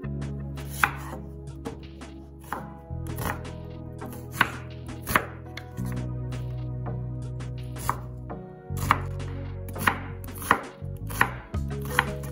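Chef's knife chopping a red onion on a bamboo cutting board: uneven knocks of the blade through the onion onto the wood, about a dozen sharp loud ones among lighter cuts.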